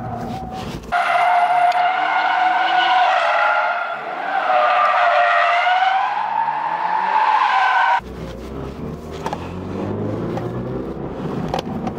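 Toyota GR86's tyres squealing in a long, wavering screech as the rear slides around slalom cones, with its 2.4-litre flat-four engine revving underneath. The squeal eases briefly about four seconds in and cuts off near eight seconds, giving way to the engine running as heard inside the cabin.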